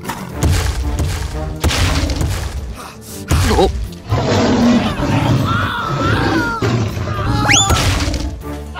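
Background music with added cartoon sound effects: a string of thumps and crashes, and a quick rising whistle near the end.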